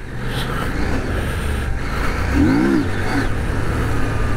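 CF Moto 800MT's parallel-twin engine running under steady wind and gravel noise as the motorcycle rides a dirt track, with a brief rise and fall in engine pitch about two and a half seconds in.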